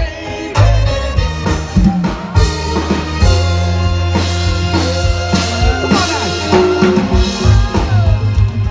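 Live reggae band playing an instrumental passage over a PA: drum kit and heavy bass line, with a saxophone at the front near the end.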